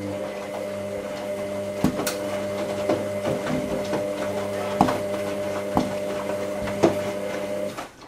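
Hoover AC158 Classica 1000 washing machine running a steady electric hum, most likely its drain pump emptying the drum during the rinse, with a few sharp knocks from the drum and laundry. The hum cuts off suddenly near the end.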